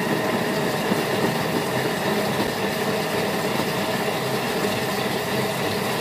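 Thermomix food processor running steadily at middle speed, its blade mixing honey into puréed viburnum berries with a constant motor hum.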